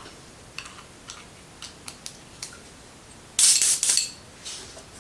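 A few light clicks of handling, then a loud, brief hiss of an airbrush spraying, lasting about half a second, a little past halfway through.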